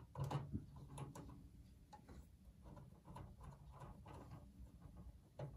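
Faint clicks and light metallic taps of a screwdriver and hands working on a Power Macintosh G4 Quicksilver's metal chassis, a cluster of louder ones just after the start and another click near the end.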